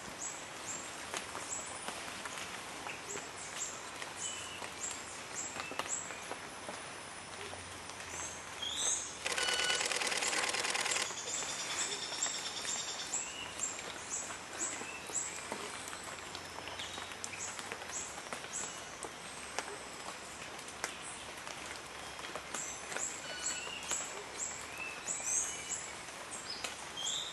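Birds chirping: short, high chirps repeat a couple of times a second over a steady background hiss, with a loud, rapid buzzing trill about nine seconds in that lasts about two seconds.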